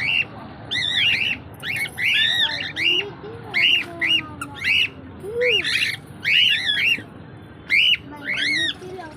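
Small pet birds giving short, sharp squawking calls, one to two a second, several overlapping, each call rising and falling in pitch.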